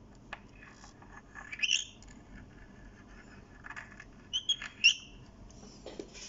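Tissue wiped over the glass of an empty Seiko 5 watch case: light clicks and rubbing with a few short high squeaks, the sharpest near five seconds in.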